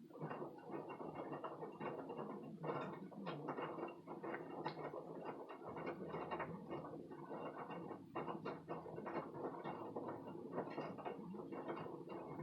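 Washing machine clattering with a dense, irregular run of clicks and rattles over a faint steady hum.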